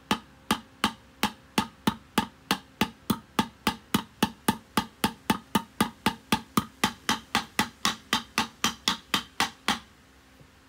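Hammer striking a steel drift to drive a wheel bearing into a brake drum's hub, working around the edge of the bearing. The strikes are sharp and evenly paced, about three a second, and stop about a second before the end.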